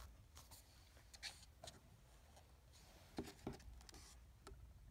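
Faint paper rustles and a few soft ticks of a picture book's pages being handled and turned, against near silence.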